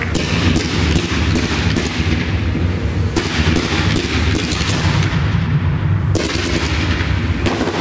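Fireworks display firing a dense barrage: a rapid run of sharp bangs from ground-launched effects, about two or three a second, over a continuous low rumble. The bangs thin out briefly around five seconds in, then a sharp bang starts them again.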